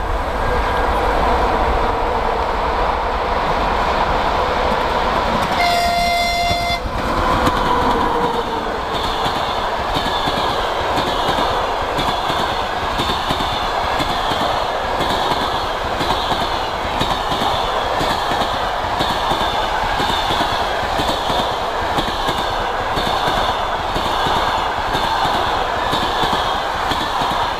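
A ChS2T six-axle DC electric locomotive passes with a passenger train. It sounds a horn for about a second some six seconds in, then the coaches roll by with a steady rush and repeated clicks of wheels over rail joints.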